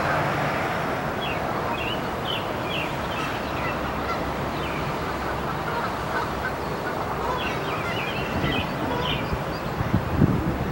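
Outdoor ambience by a park pond: a steady wash of background noise with birds calling in short, high chirps now and then, and a few low thumps near the end.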